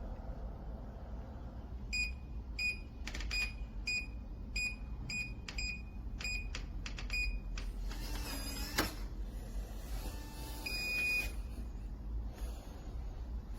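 eufy C210 smart lock keypad beeping about ten times as a passcode is keyed in. A short mechanical whir follows as the motorised deadbolt moves, then one longer beep.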